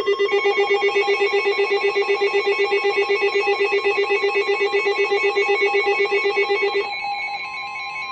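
Weather alert radio sounding its rapid pulsing alarm beep, about eight pulses a second, for a severe thunderstorm warning. Near the end it switches to the steady single-pitch NOAA Weather Radio warning alarm tone.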